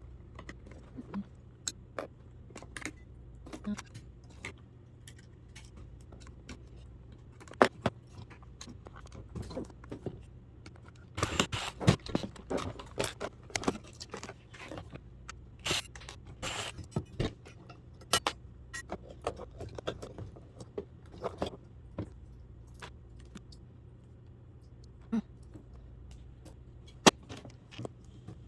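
Small loose metal and plastic scrap pieces clinking and clattering as they are handled and gathered up, in irregular clusters of clicks that are busiest around the middle.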